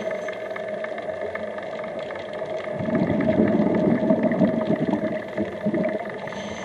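Underwater sound through a camera housing: a steady hum, then a rumbling stretch of bubbles from about three to five seconds in, typical of a scuba diver exhaling through the regulator.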